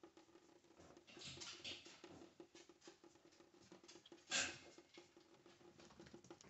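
Faint trickle and patter of a thin faucet stream into a stainless steel sink, with a cat shifting about in the sink: a rustle of movement about a second in and one short, louder knock about four seconds in as the cat moves off.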